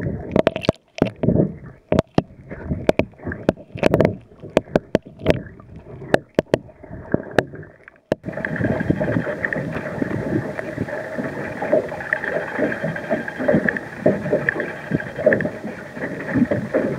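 For about the first eight seconds, irregular knocks and clicks over muffled water, picked up by an underwater camera in its housing. Then, after an abrupt cut, water slapping and wind noise on a small boat, with a faint steady hum underneath.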